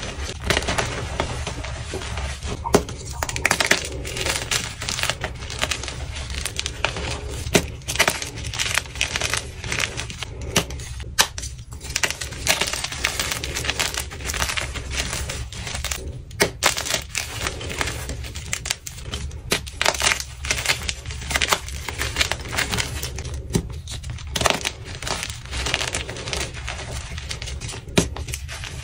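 Bare hands crush and crumble blocks of gym chalk (magnesium carbonate), fresh white and orange dyed, into loose powder and chunks. The result is a continuous dense crunching and crackling, full of many sharp little cracks. Near the end an orange dyed block is squeezed in both hands.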